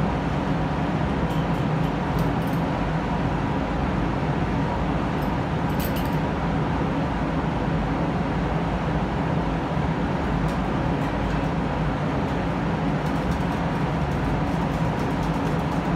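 Paint spray booth ventilation fans running with a steady hum and rush of air.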